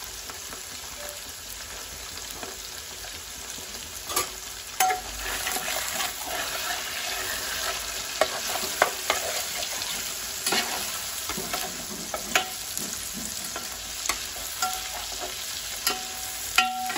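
Large pieces of fish sizzling as they shallow-fry in oil in a metal pan. From about four seconds in, a steel spatula clicks and scrapes against the pan again and again, and the sizzle grows a little louder.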